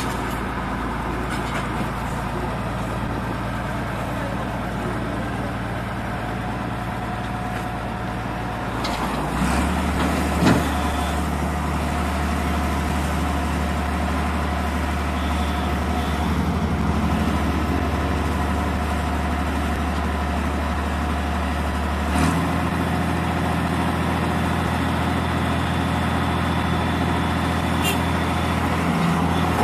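New Holland 8060 tracked combine harvester's diesel engine running steadily as the machine is driven down off a low-loader trailer. The engine note steps up about a third of the way in, with a single knock just after, and shifts again about two-thirds of the way through.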